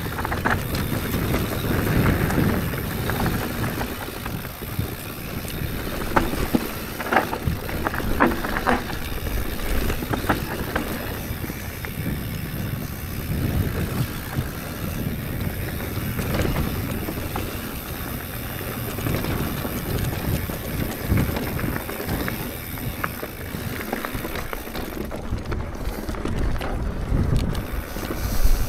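Mountain bike rolling along a dirt trail, with tyre and drivetrain rumble and short rattling knocks over bumps, and wind buffeting the microphone.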